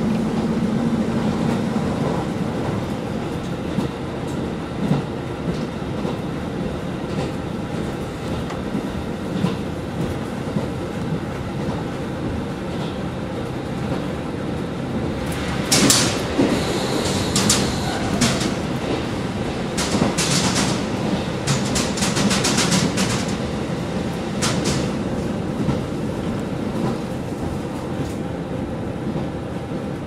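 Inside a JNR KiHa 40 diesel railcar at speed: steady running noise from its diesel engine and wheels on the rails. About halfway through, a run of sharp wheel clicks over rail joints lasts for several seconds.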